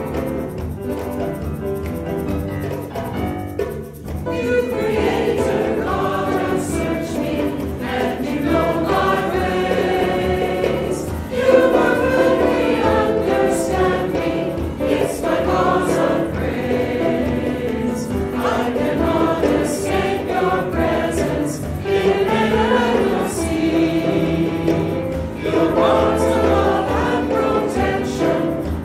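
A choir singing a hymn with instrumental accompaniment. The voices come in about four seconds in, after an instrumental introduction.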